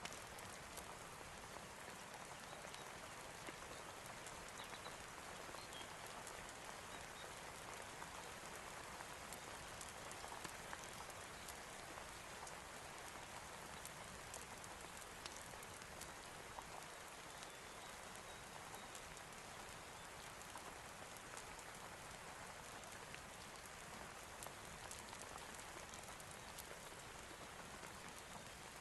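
Steady rain falling, an even hiss with many scattered small clicks.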